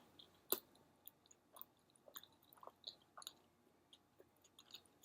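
Faint chewing of a bagel sandwich: soft, scattered wet mouth clicks and smacks, with one sharper click about half a second in.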